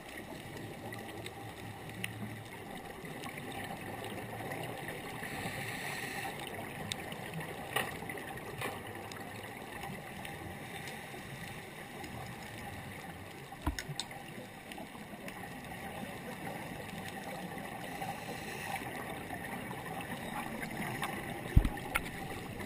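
Muffled underwater ambience heard through a camera's waterproof housing: a steady hiss and rush of water, with a few faint clicks and a sharper knock near the end.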